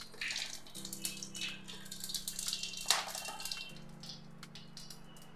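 Whole cumin seeds and whole garam masala sizzling in hot mustard oil in a kadai, with a spatula scraping and knocking against the pan several times, most sharply about three seconds in. Soft background music with low held notes plays underneath.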